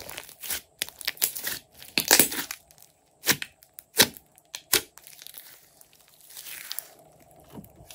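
Glossy slime squeezed, poked and stretched by hand, giving irregular sticky pops and clicks. The loudest are a few sharp pops between about two and five seconds in, followed by a softer crackling hiss as the slime is pulled out into a sheet.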